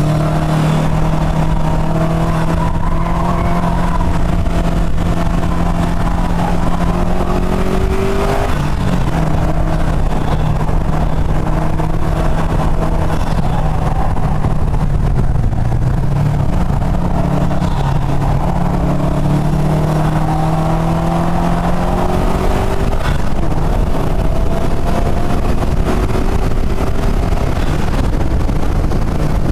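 Subaru WRX STi's turbocharged flat-four engine driven hard on a race track, its note climbing under acceleration and dropping back at upshifts and braking for corners, several times over. Steady wind and road noise sits beneath it throughout.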